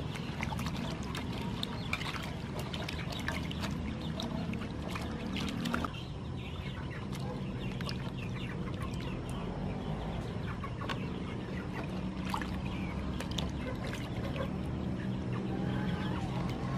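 Hands swishing and rubbing vegetables (long beans, eggplant, pumpkin) in a steel bowl of water, making a run of small splashes and clicks. Chickens cluck in the background.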